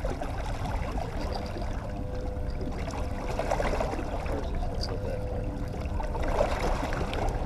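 Boat underway at slow trolling speed: its motor runs steadily with a faint steady whine, and water washes along the hull.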